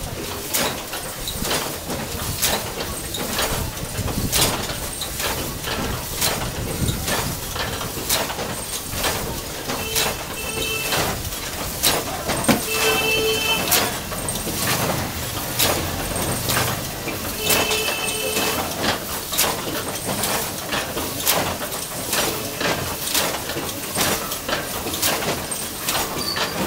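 Old platen letterpress printing presses running, a steady clatter of sharp mechanical clacks several times a second. A few brief squeaks sound over the clatter.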